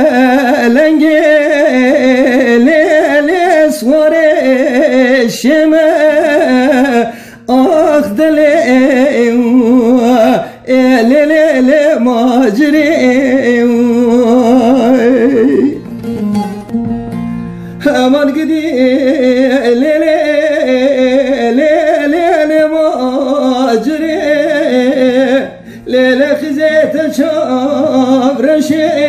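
Music: a song with a wavering, ornamented sung melody over plucked string accompaniment, with a brief break in the singing about sixteen seconds in.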